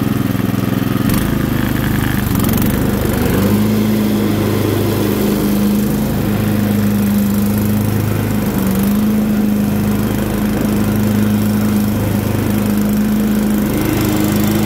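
Murray riding mower's 12 hp Tecumseh single-cylinder four-stroke engine running steadily while the mower drives across grass. Its note changes about a second in and settles into a steady hum a few seconds later.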